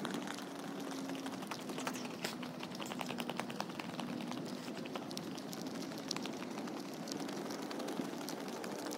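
Jogging footsteps on a track with the rubbing and tapping of a hand-held phone, heard as many irregular sharp clicks and taps over a steady outdoor hiss. A faint low steady hum runs underneath.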